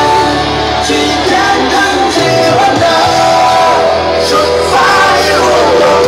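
A song with a sung melody played loud through a sound truck's stacked horn loudspeakers.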